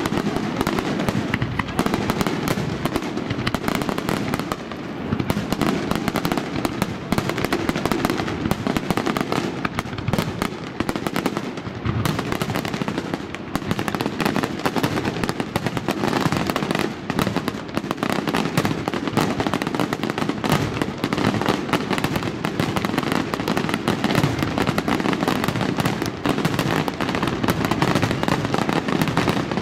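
Fireworks display: aerial shells bursting in a dense, unbroken barrage of bangs and crackling.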